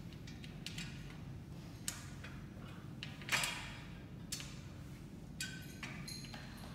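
Small clicks, taps and scrapes of aluminium frame parts and screws being handled on a hard tiled floor, the loudest a sharper knock with a brief ring a little over three seconds in, over a faint steady low hum.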